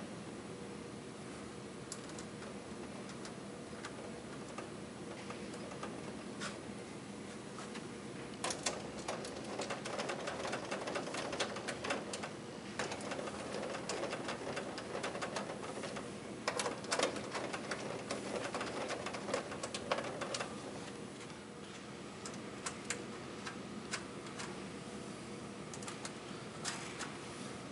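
Small metal nuts and washers being fitted and turned onto panel studs by hand: light, irregular metallic clicks and clinks over a faint steady hum, busiest in the middle stretch.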